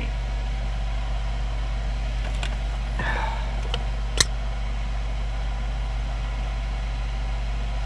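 A 6-inch inline duct fan runs with a steady low hum. A single sharp click comes about four seconds in.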